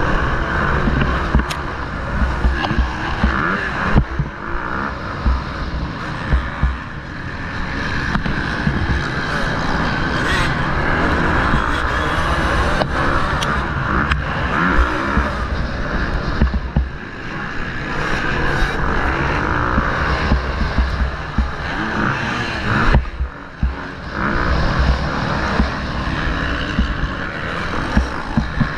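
Motocross bike engine heard from an onboard camera, rising and falling with the throttle, with heavy wind buffeting on the microphone. The engine note dips briefly twice, about two-thirds of the way through and again a few seconds later, as the throttle is rolled off.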